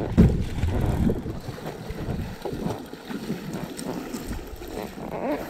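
Wind buffeting the microphone over choppy sea water splashing against a kayak's hull, loudest in the first second.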